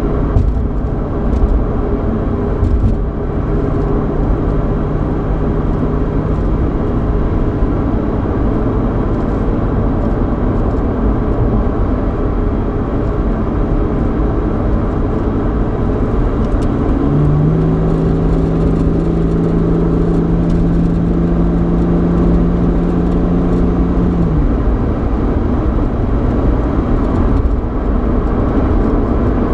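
Interior road noise and engine hum inside a 3.8-litre V6 Ford Mustang while driving: a steady low rumble of tyres and road. A droning engine note swells into a louder held hum for several seconds in the second half, then drops back.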